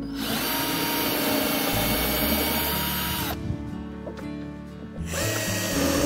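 Cordless drill working into pallet-wood deck boards: a steady motor whine for about three seconds that stops, then starts again about five seconds in.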